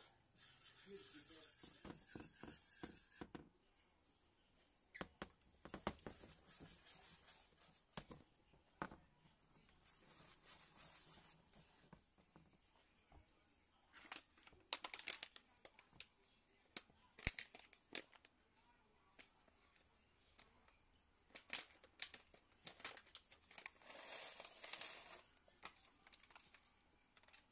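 Kitchen preparation sounds: stretches of faint rustling and scraping with scattered sharp clicks and knocks, the loudest clicks in the second half.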